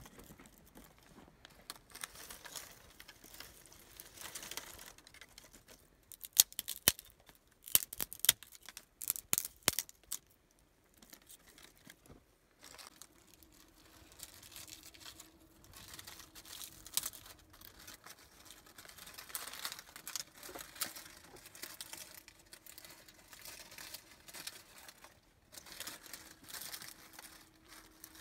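Dry twigs snapping and rustling as kindling is broken by hand and stacked on stones for a fire. A quick run of sharp snaps comes in the middle, then softer rustling.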